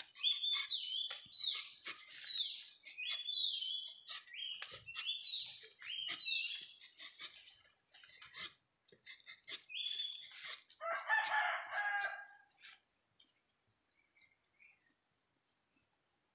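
A curved blade hacking into a tree trunk's bark in a run of sharp chops, with short high chirping calls repeating through them. A rooster crows once about eleven seconds in, the loudest sound. After about thirteen seconds the chopping stops and only a faint, steady high insect drone remains.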